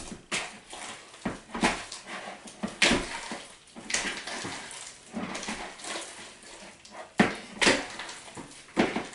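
Sticky glue slime squelching and slapping as it is kneaded by hand in a mixing bowl, in irregular wet bursts.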